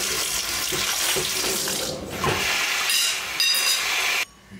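Water running steadily from a tap into a sink, stopping abruptly near the end.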